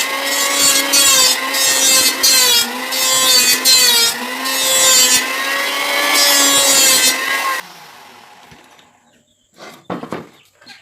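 Electric power saw cutting wood: a loud motor whine over a rasping cut, its pitch dipping now and then as the blade takes load. It shuts off about three-quarters of the way through and winds down, and a few short knocks of wood follow near the end.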